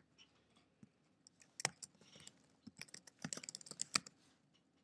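Typing on a computer keyboard: scattered key clicks, with a quick run of keystrokes about three seconds in.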